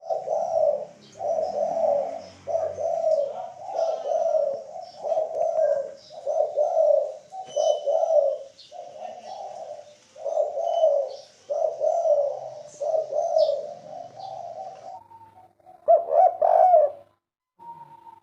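Spotted dove (derkuku) cooing in its three-note 'kuk 3' song, low coos following one another about once a second, with faint high chirps of small birds above. The cooing breaks off about fifteen seconds in, then comes back in a short burst.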